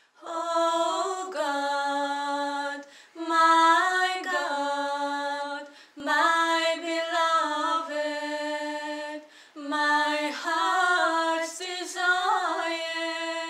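Unaccompanied singing by one voice, holding long notes with ornamented slides, in four phrases broken by short pauses.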